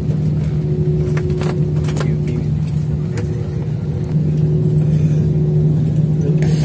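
Cabin noise of a jet airliner rolling along the runway after touchdown: a steady engine hum and rumble with a low drone, a few short clicks and rattles, and a step up in loudness about four seconds in.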